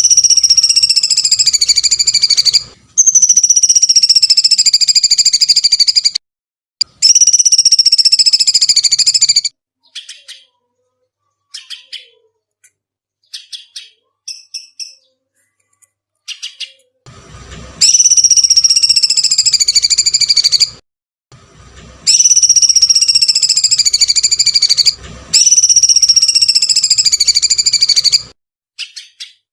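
A songbird's long, buzzy screech calls, each sliding slowly down in pitch for about three seconds. Three come in the first half and three in the second, with a few short faint chirps in the gap between.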